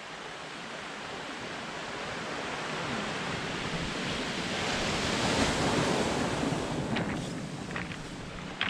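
Surf breaking on the beach: a rush of wave noise that swells to a peak about halfway through and then falls away, with a few light clicks near the end.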